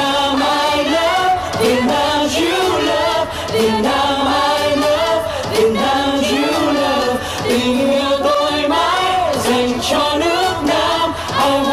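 A song with voices singing together over musical accompaniment, with long held notes.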